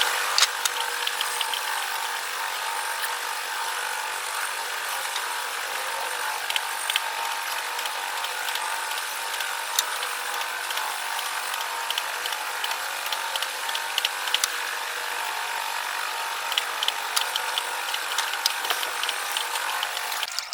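A woodworking power tool running steadily for about twenty seconds, with scattered sharp clicks over its hiss; it starts and stops abruptly.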